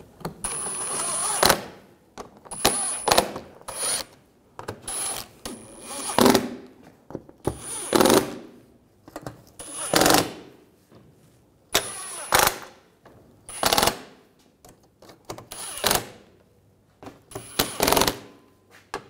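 Cordless impact driver run in a string of short bursts, about a dozen, each a second or less with short gaps between, snugging down the bolts of a plastic underbody shield.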